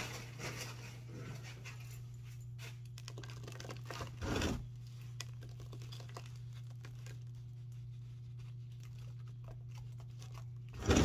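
Gloved hands pressing and scooping potting soil into a plastic nursery pot: scattered rustling and scraping, with a louder crunch about four seconds in. A steady low hum runs underneath.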